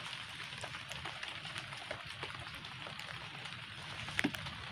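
Steady rain falling on forest leaves and ground, with scattered sharp ticks of single drops. There is one louder sharp knock about four seconds in.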